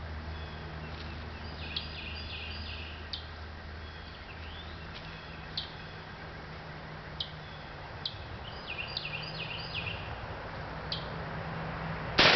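Birds chirping in short scattered calls over a low steady hum. A sudden loud blast near the end.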